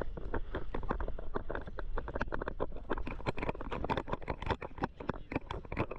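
Water splashing and slapping in many quick, irregular splashes, several a second, as a swimmer moves through choppy water against an inflatable boat's hull.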